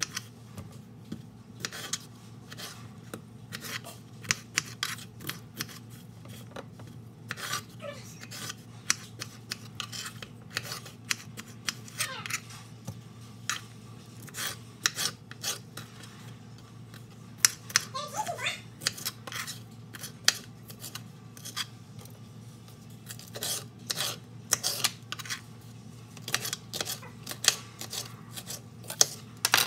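Small kitchen knife cutting potatoes and then bell peppers on a wooden cutting board: irregular knocks of the blade hitting the board, with a steady low hum underneath.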